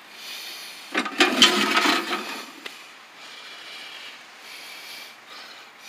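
Handling noise: a rough scraping rub with a couple of light knocks about a second in, lasting about a second, then fainter rustling.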